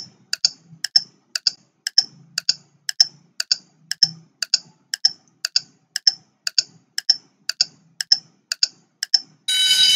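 Countdown clock ticking sound effect, about two sharp ticks a second, timing a ten-second quiz answer period. Near the end a loud, steady buzzer sounds to signal that time is up.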